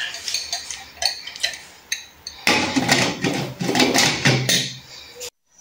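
A few light clinks of cookware, then a glass lid clattering and scraping as it is set onto a stainless steel cooking pot. The sound cuts off suddenly near the end.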